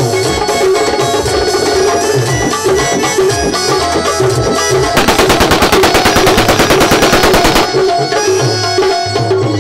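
A burst of fully automatic fire from a Kalashnikov-pattern rifle: rapid, evenly spaced shots for about two and a half seconds, starting about five seconds in. This is celebratory firing, heard over live folk music with tabla.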